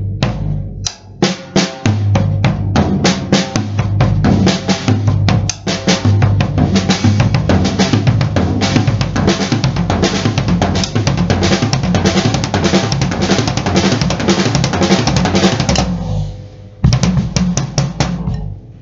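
Acoustic drum kit played with sticks: a repeating six-stroke pattern around rack tom, snare and floor tom over the bass drum, getting faster into a dense roll. It breaks off about three seconds before the end, and a short burst of strokes follows.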